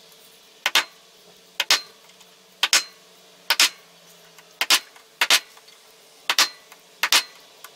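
Center punch striking the face of a cast iron steam-engine cylinder head to deepen hole marks: about nine sharp metallic clicks with a short ring, roughly one a second, some doubled.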